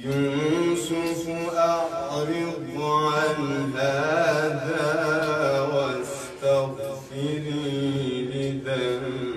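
A man's voice chanting in long, drawn-out melismatic phrases, in the manner of Islamic religious chanting or Quranic recitation, over a steady low held tone.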